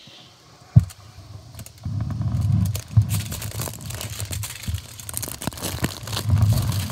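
Handling noise on a phone's microphone: a sharp knock about a second in, then rubbing and rumbling with many scattered clicks and crackles as fingers move over and around the phone.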